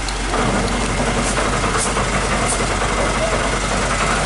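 Fire truck's engine running, stepping up in loudness about half a second in and then holding steady.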